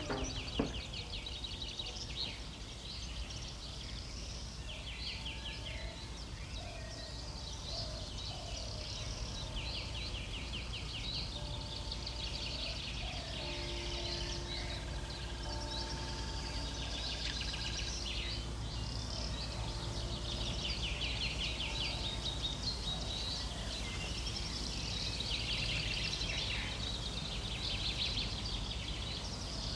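Many birds chirping and trilling at once, with rapid repeated chirps and a few lower whistled notes, over a steady low hum.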